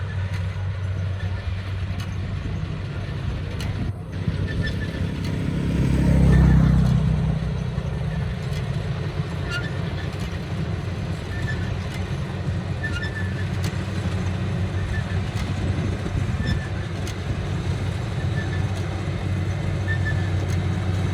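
Engine of a rice combine harvester running steadily with a low hum. About six seconds in, a louder engine swells and drops in pitch as it passes close.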